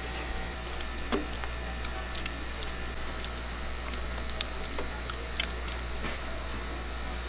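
Handmade Korean fish cake (eomuk) paste deep-frying in a tray of hot oil: sizzling with many sharp crackles and pops, the loudest about a second in and twice around five seconds in, over a steady low hum.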